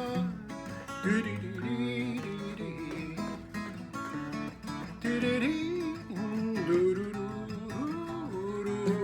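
Acoustic guitar playing a song's instrumental introduction, with a melody line that bends and glides in pitch above the chords.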